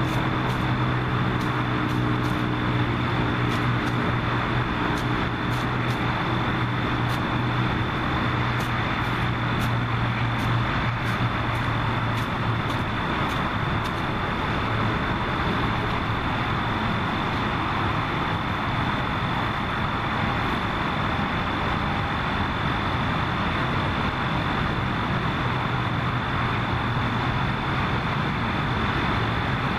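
Steady outdoor noise with a low motor-like hum that fades out about twelve seconds in, and a faint high steady whine throughout.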